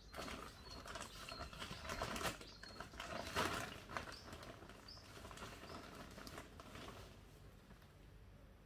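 Plastic bag of potting mix rustling and crackling as soil is scooped out of it by hand, busiest in the first four seconds and then tailing off.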